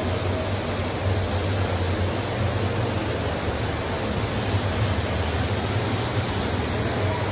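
Steady rushing noise with a low hum underneath, even throughout with no distinct events.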